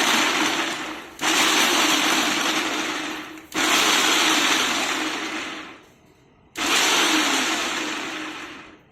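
Preethi Peppy Pro mixer grinder running its chopper jar in short pulses to chop carrot pieces. There are four runs of about two seconds each, each starting abruptly and tapering off, with a brief pause before the last.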